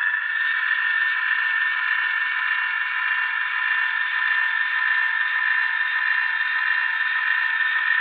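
LokSound decoder playing an EMD 645 diesel prime mover sound through an HO-scale model locomotive's small speaker, running steadily at raised revs as the model moves forward. The sound is thin, with no bass.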